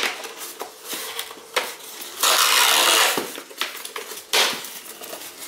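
Polystyrene foam packing being handled and pulled out of a cardboard box: rubbing and scraping with a few sharp knocks, loudest in a harsh stretch of about a second near the middle.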